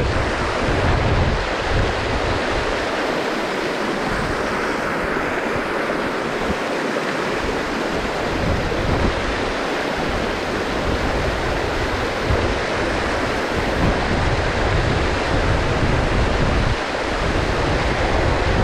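Steady rushing of stream water, with wind buffeting the microphone in uneven gusts.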